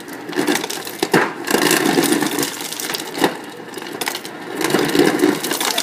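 Refrigerator door ice dispenser on its crushed-ice setting: the crusher grinds steadily while crushed ice clatters into a plastic blender cup, with many sharp clicks from the falling ice.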